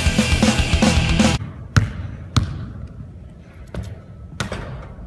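Rock music cuts off about a second and a half in. Then a basketball bounces on a gym floor four times at uneven intervals, each bounce echoing briefly in the hall.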